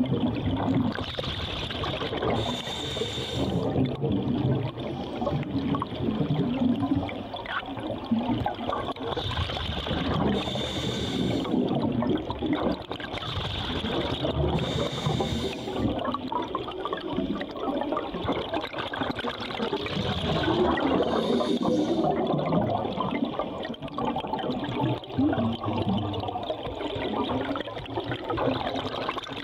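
Underwater bubbling and gurgling from scuba divers' exhaled air, with a brief hissing rush of bubbles a few times, every several seconds.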